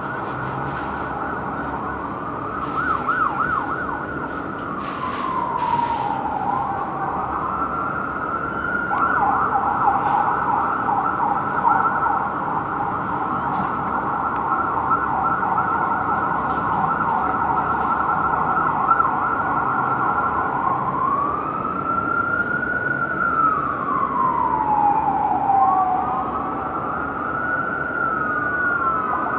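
Electronic sirens of a fire engine and an ambulance responding code 3, switching between a slow rising-and-falling wail and a fast yelp; the fast yelp runs through most of the middle, the slow wail comes back near the end.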